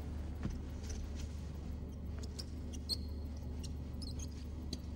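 Low steady background hum with scattered faint light clicks and ticks, and one brief high squeak near the middle.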